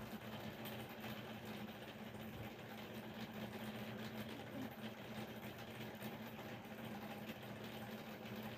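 A steady low hum over a background hiss, unchanged throughout.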